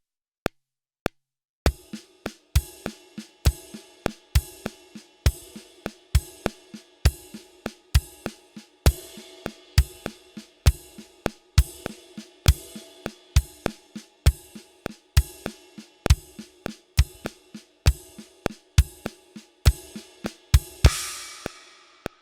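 Drum kit playing a sixteenth-note groove in groups of three: kick drum and ride cymbal together on the first note of each group, quiet snare ghost notes on the other two, over a steady metronome click. The click counts in for about a second and a half before the drums enter, and the groove stops near the end with a cymbal ringing out.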